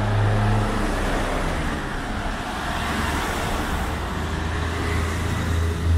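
Street traffic: vehicle engines running close by as a steady low hum over road noise, and a motor scooter's engine coming up louder near the end.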